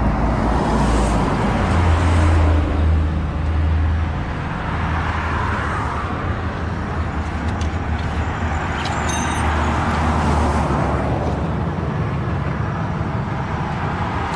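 Highway traffic passing close by: a steady rush of tyres and engines with a low rumble that swells as vehicles go past, loudest in the first few seconds.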